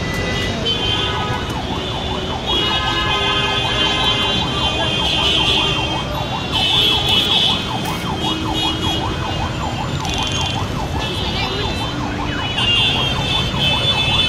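Background music with a high, wavering melody.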